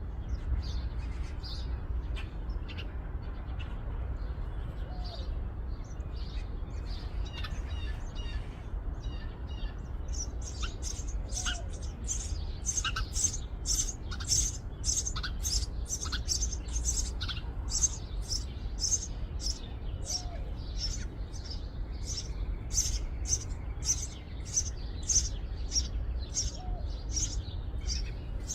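House sparrow nestlings begging in the nest: faint, scattered chirps at first, then from about ten seconds in a rapid, steady run of loud, high chirps, roughly two a second.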